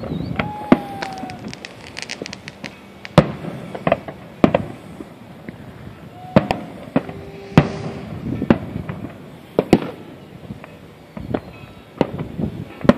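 Aerial fireworks shells bursting overhead: about a dozen sharp bangs at uneven intervals, each followed by a low rumbling echo.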